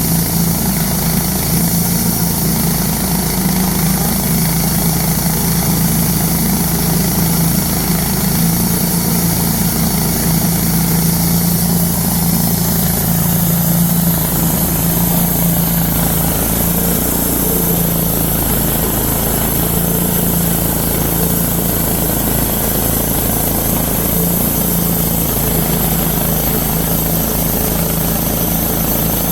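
Wood-Mizer LT-10 portable band sawmill running at a steady pitch, its engine and blade unchanged throughout.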